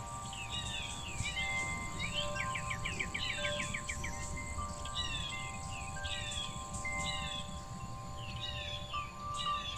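Songbirds singing in a forest: one bird repeats a short high phrase over and over, and a rapid trill comes in briefly about two seconds in. Wind chimes ring with several sustained tones, a new one struck now and then, over a steady low rumble.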